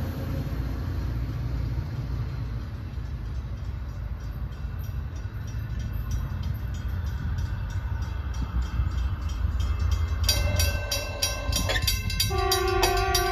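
Low rumble of a train pulling away from a station platform, slowly easing. After about ten seconds a grade-crossing warning bell starts dinging rapidly, about three strikes a second, and near the end a chord of several steady tones joins it.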